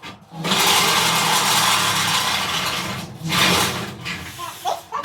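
Electric drill running under load, boring a hole through the kart's steel body. It starts up just after the beginning, stops for a moment about three seconds in, then runs on in shorter bursts.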